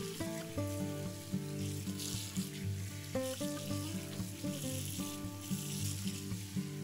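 Food sizzling as it fries in oil in a pan, a steady hiss, with folk-style background music playing over it.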